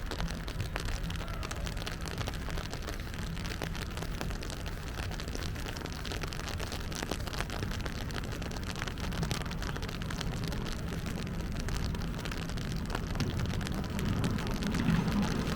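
Rain falling, many small drops pattering on surfaces, over a steady low rumble that swells near the end.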